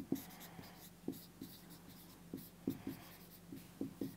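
Marker pen writing on a whiteboard: a string of short, irregular strokes and taps of the tip against the board.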